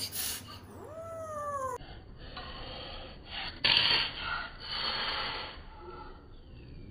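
Kitten meowing once, a short call that rises and falls in pitch, then hissing in breathy bursts, the loudest about four seconds in.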